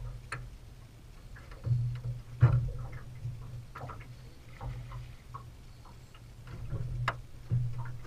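Irregular clicking and ticking from a rod and reel as a hooked catfish is fought and reeled toward the boat, over a low rumble that swells and fades. The sharpest knock comes about two and a half seconds in.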